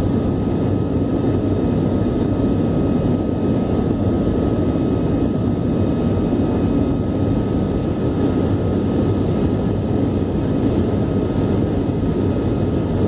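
Jet airliner cabin noise while climbing out after takeoff: a steady roar of the engines and rushing air, unchanging throughout, with a thin steady high tone over it.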